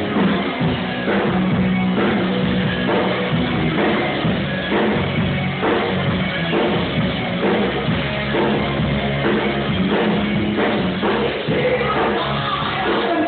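Loud rock music with singing over a steady drum beat.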